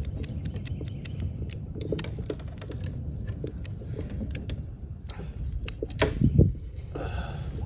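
Irregular small clicks and rattles of fishing gear being handled, with a couple of heavier low knocks about six seconds in and a short hiss near the end.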